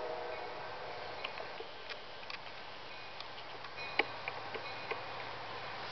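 Faint, steady low rumble of an approaching freight train in the gap between horn blasts, with a few small clicks and short high tings scattered through it.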